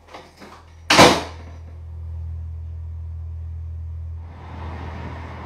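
A single loud bang about a second in, followed by a steady low hum; a broad hiss joins the hum about four seconds in.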